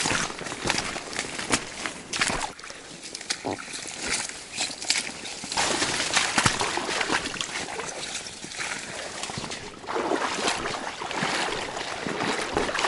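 Footsteps wading through shallow water among water plants and grass: irregular sloshing and splashing with rustling stems.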